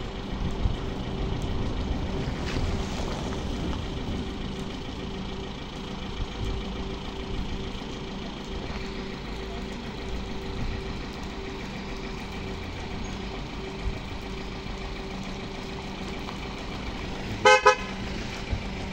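A vehicle engine running with a steady, constant hum as the recovery truck's crane pulls the car up by rope; near the end a vehicle horn toots twice, briefly.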